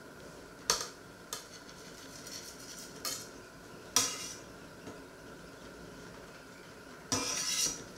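Metal knife blade clinking and scraping against a dark metal frying pan as fried pieces are lifted out onto a plate: several sharp clinks in the first half, the loudest about four seconds in, then a longer scrape near the end.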